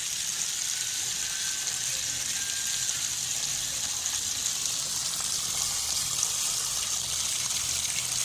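Water running steadily from a tap, pouring into a vessel being filled.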